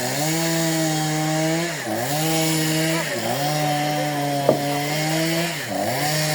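A chainsaw running at high revs, cutting wood, its engine note sagging and recovering four times. A single sharp knock comes about two-thirds of the way through.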